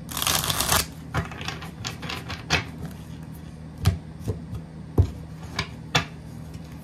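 A deck of tarot cards being shuffled by hand: a quick run of rapid card flicks in the first second, then separate snaps and taps of the cards as the shuffle goes on, the sharpest about five seconds in.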